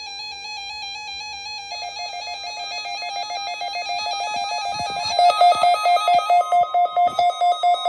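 Weather radio warning alarm: steady electronic alarm tones that warble slightly and grow louder. About five seconds in they turn into rapid pulsing beeps, about three a second.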